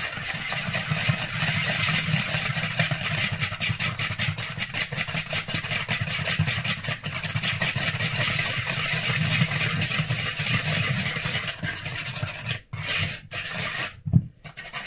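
Wire balloon whisk beating wet brownie batter in a plastic mixing bowl: quick, even scraping strokes. They break off about twelve and a half seconds in, then come in short bits and stop near the end.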